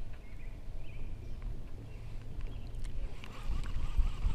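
Low, steady rumble of wind and water noise on a kayak-mounted action camera's microphone, with a few faint clicks from handling a baitcasting reel.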